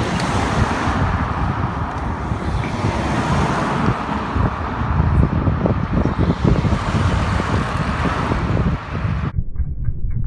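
Wind buffeting the microphone, with tyre and road noise from a road bike riding along a lane, and a car going by. Near the end it cuts abruptly to a duller, steady sound with a fast, even ticking.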